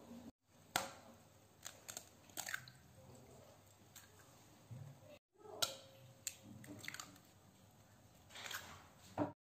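Eggs being cracked one after another into a glass bowl: sharp cracks and taps of shell, with short crackly spells as the shells are broken open and the eggs drop in.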